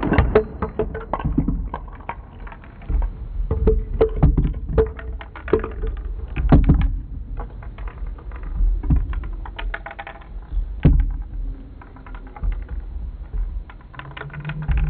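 Abstract experimental soundtrack of irregular clicks and knocks over a low rumble, with brief held tones in the first half and a low hum coming in near the end.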